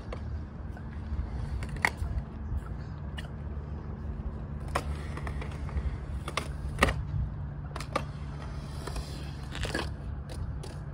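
Scattered sharp clacks of skateboards on concrete, about half a dozen at uneven intervals and the loudest near the seven-second mark, over a steady low rumble.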